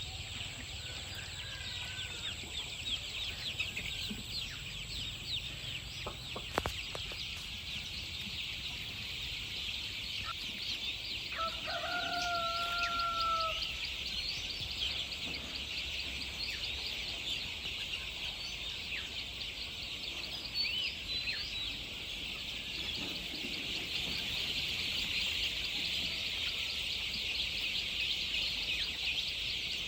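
Chickens: a constant mass of high, rapid peeping and chirping, and about twelve seconds in a single rooster crow lasting about two seconds.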